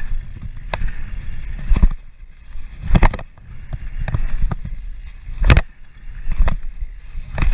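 Mountain bike rolling fast over a packed-dirt jump track, with a steady low rumble of wind on the microphone and tyres on dirt. Several sharp clatters come as the bike hits bumps and landings, the loudest two near the middle.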